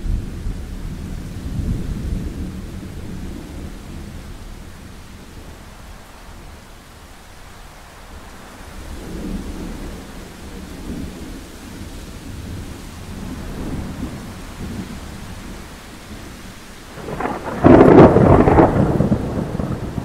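Thunderstorm: steady rain with low thunder rumbling on and off, then a sudden, loud thunderclap near the end.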